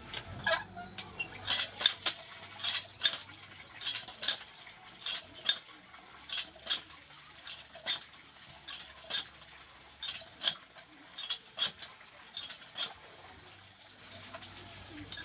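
Cast-iron hand-lever well pump being worked, its handle and linkage giving sharp metal clanks about twice a second as water pours from the spout into a basin. The clanking stops near the end.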